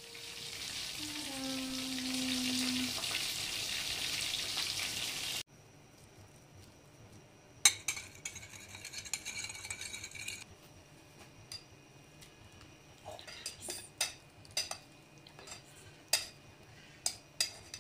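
A covered pot of rice hissing and sizzling under its glass lid for about five seconds, cutting off abruptly. Then a metal spoon clinks and scrapes while stirring in a small glass dish, followed by metal tongs clicking against a glass bowl as chicken pieces are mixed.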